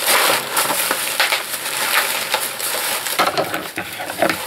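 Thin plastic carrier bags crinkling and rustling as hands rummage through them and pull one bag out of another.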